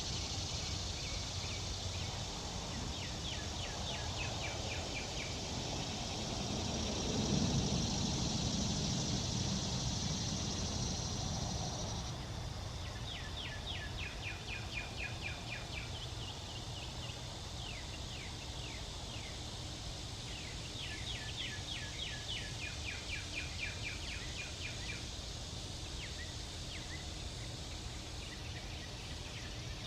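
Outdoor ambience with no siren sounding. A bird sings repeated rapid trills of short downward-sliding notes, and a high insect drone stops about twelve seconds in. A low rumble swells and fades before that.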